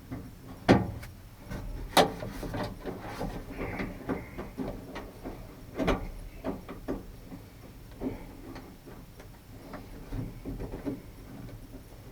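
Irregular clicks, knocks and small rattles of hand tools and metal parts being handled while working on a pickup door's handle mechanism, with sharper knocks about a second in, about two seconds in and around six seconds in.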